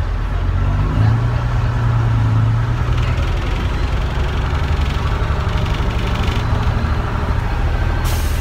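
Bristol RELL6L bus's rear-mounted six-cylinder Leyland diesel engine, heard from inside the saloon as the bus moves off. It grows louder over the first second and then runs steadily with a deep, even note.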